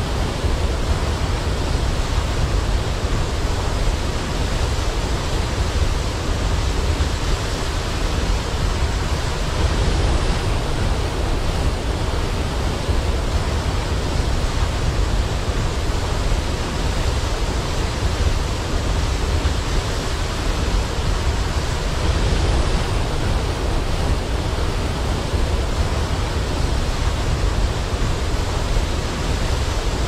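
Waterfall water crashing and rushing, a steady, dense noise heaviest in the low end that stays even throughout.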